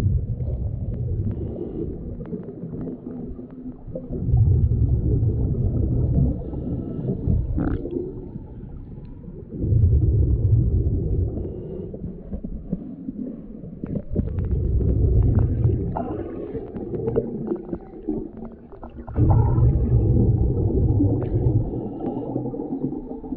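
A diver breathing underwater through a vintage US Divers DA Aquamaster double-hose regulator. Each exhalation sends out a low, bubbling rumble lasting about two seconds. The rumbles come roughly every five seconds, with quieter spells between them as he breathes in.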